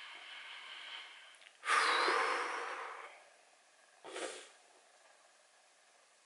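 Sniffles and shaky breaths from crying: a long drawn breath, then a loud sniffling sob about two seconds in that slowly fades, and a short sniff about four seconds in.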